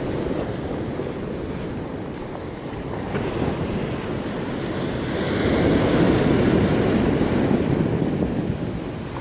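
Ocean surf washing up on the beach around the listener, with wind buffeting the microphone; the wash swells louder about five seconds in, then eases.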